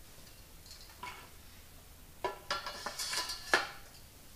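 Steel legs of an abba Sky Lift motorcycle lift clanking and scraping against the upright's base as they are fitted into its sockets: a few metallic knocks, bunched toward the end, with the sharpest clank about three and a half seconds in.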